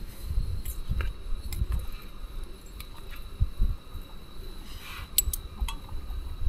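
A spoon clinking against a metal camp cooking pot as a meal of rice, beans and tofu is stirred: a handful of light clinks, with several close together about five seconds in, over a low rumble.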